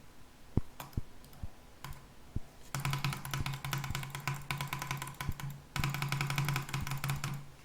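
A few single computer clicks, then about five seconds of very rapid, even clicking over a steady buzzing hum, broken off briefly partway through, typical of fast clicking during a click-speed test.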